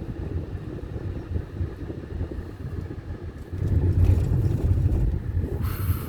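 A car driving on the road, heard from inside: a steady low rumble of engine and tyres that grows louder about three and a half seconds in, with a brief hiss near the end.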